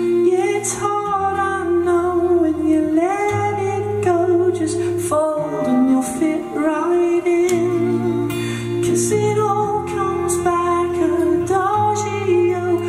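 A male singer holding a sung melody over two acoustic guitars, with the chords changing about every two seconds.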